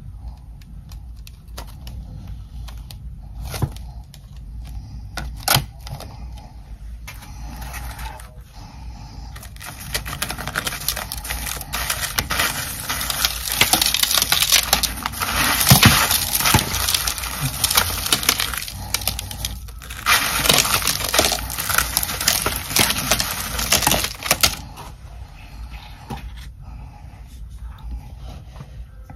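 Ice chunks coated in humidifier frost clicking and clinking a few times, then a dense run of crunching and crackling frost from about ten seconds in until about twenty-four seconds, after which it eases to lighter clicks.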